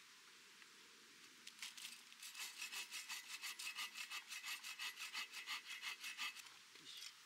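Hand saw cutting wood: rhythmic rasping strokes, about five a second, beginning about one and a half seconds in and stopping shortly before the end, with a faint ringing from the blade.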